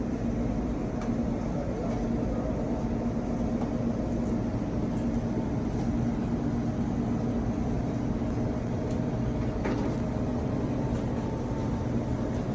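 Steady low hum of commercial kitchen machinery, with a few faint light clicks.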